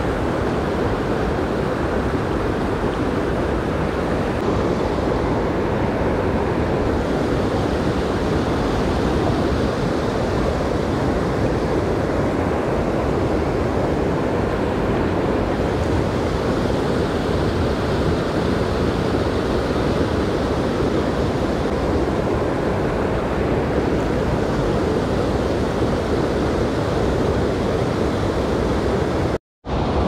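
A mountain stream rushing, a steady, even water noise with no break in it except a moment's dropout near the end.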